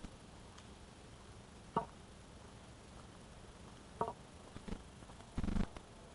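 Wooden walking stick tapping on the path every second or two, sharp single knocks, with a longer, duller thump about five and a half seconds in.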